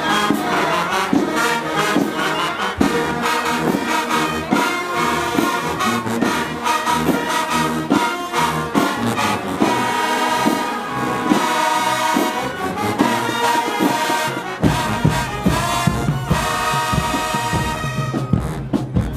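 Marching band playing: brass over a steady drum beat. About fifteen seconds in, the low end gets much heavier.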